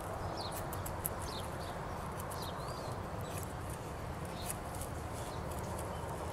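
A homemade Kephart-style bushcraft knife shaving curls off a split stick of wood in repeated downward strokes, carving feather-stick shavings, as scattered light clicks over a steady hiss. Short high bird chirps come through every second or so.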